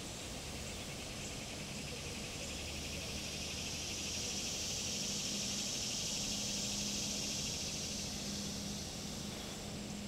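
Cicada buzzing: a high, pulsing drone that swells over a couple of seconds, holds, then fades near the end, over a low steady hum.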